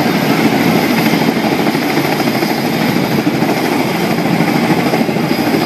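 Tandem-rotor CH-46 Sea Knight helicopter hovering close overhead: a loud, steady rotor and engine noise with a faint high whine running under it.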